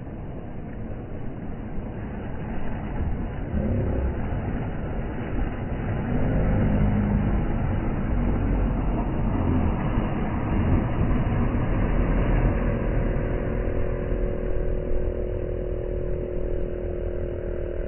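A boat's outboard motor running, its pitch rising and falling at first and then holding steady, cutting out right at the end, over waves washing onto the shore.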